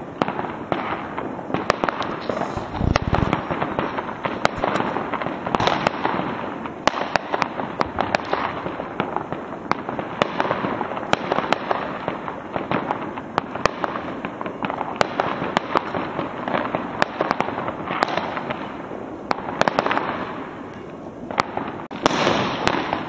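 Many fireworks and firecrackers going off across the neighbourhood: a dense, continuous crackle of bangs and pops with frequent louder reports, and a low thump about three seconds in.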